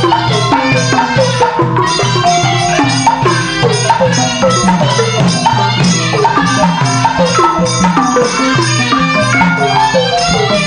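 Burmese traditional instrumental music: quick runs of tuned struck notes over a steady drum beat.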